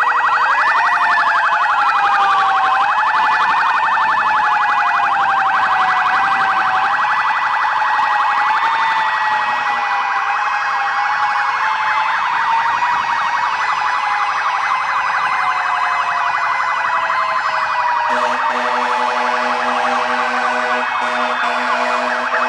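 Many police sirens sounding at once, several wails and rapid yelps overlapping and sliding up and down in pitch. A steady, pulsing low horn tone joins in near the end.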